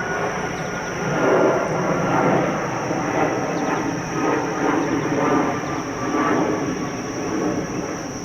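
Small DJI quadcopter drone flying close by, its propellers giving a steady buzzing drone, over a constant high-pitched insect whine.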